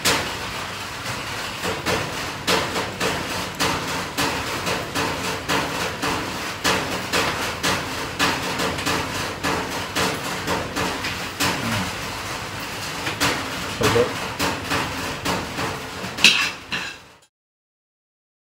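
Someone eating a crisp piece of bread close to the microphone: a fast, irregular run of crunching crackles and clicks that stops abruptly about a second before the end.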